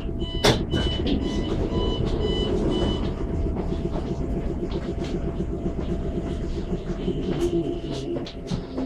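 Low steady rumble and hum inside a British Rail Class 315 electric train, standing or barely moving. A run of short high beeps sounds over the first three seconds, with a sharp knock about half a second in, and a high tone returns near the end.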